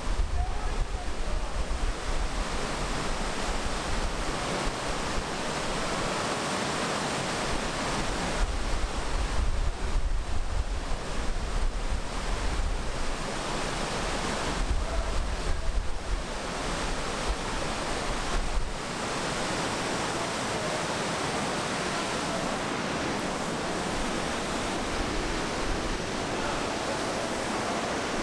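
Whitewater rapids of a mountain river rushing through a rocky gorge, a steady, loud rush of water. Wind buffets the microphone with gusty low rumbles until about two-thirds of the way through, then drops away.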